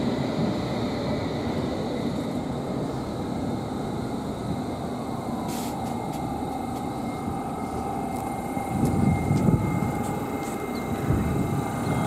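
London Underground S8 Stock electric train running into the platform and braking: a steady rumble of wheels on rails with a motor whine that falls in pitch about halfway through and then holds steady. The rumble swells briefly near the end, as the train slows toward its stop.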